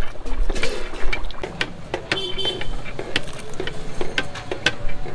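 Irregular clanking of metal ladles against steel cooking pots over street noise with a low vehicle rumble, and a brief high tone about two seconds in.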